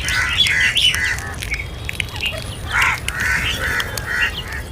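Crows cawing: a string of short, harsh calls, several overlapping, as from more than one bird.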